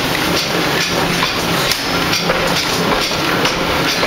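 1-ton forging hammer striking a red-hot workpiece in rapid repeated blows, about three a second, over a steady running machine noise.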